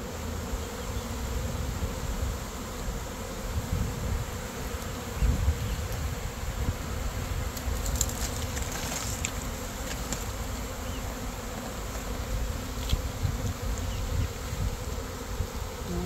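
A honey bee swarm buzzing: the steady hum of thousands of bees in the air, stirred up as the swarm is shaken from a shrub into a hive box.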